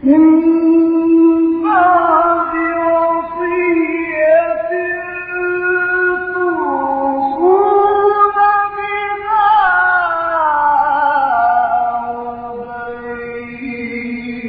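A male Quran reciter's voice holding one long melodic phrase in tajweed style. It sustains and slides slowly between pitches, dipping briefly about halfway through and gliding lower in the last few seconds.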